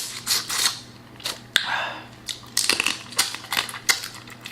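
Close-up eating sounds of boiled crawfish and shrimp: shells cracking and being peeled by hand in a quick string of sharp clicks, with short wet smacking noises between them.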